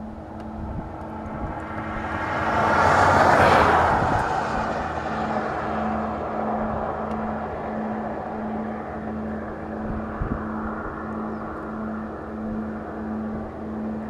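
A car passes by on the road, its noise swelling to a peak about three seconds in and then slowly fading. Underneath, a low hum pulses about twice a second.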